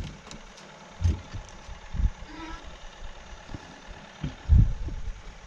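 A few dull low thumps and knocks in a small fishing boat, with three stronger ones about one, two and four and a half seconds in, the last the loudest, and a few light ticks between.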